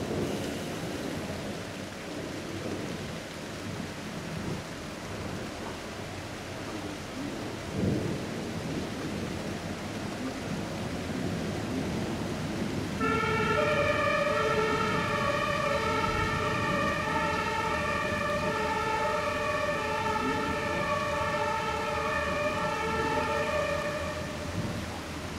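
Thunderstorm: steady rain with low rumbling thunder, and a louder thunder clap about eight seconds in. About halfway through, an emergency vehicle's siren starts up and sounds for some ten seconds, its pitch wavering, then fades out near the end.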